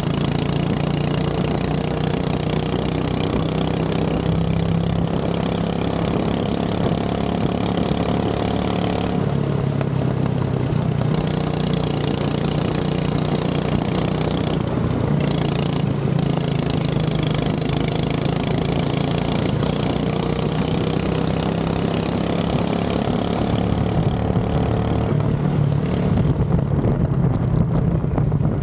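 Go-kart engine running steadily, its pitch rising and falling a little as the throttle changes.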